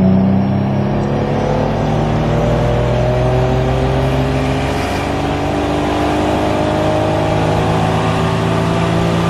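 Turbocharged BMW M50 inline-six under full throttle, revs climbing steadily through one long pull, heard from inside the car. This is a logged tuning run on 0.4 bar of boost at minimal ignition advance, recorded to capture the engine's knock noise before timing is added.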